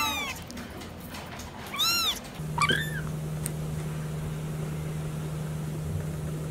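Kitten meowing: the end of one meow at the start, then two short, high meows about two seconds in, each rising and falling in pitch. A steady low hum comes in just after them.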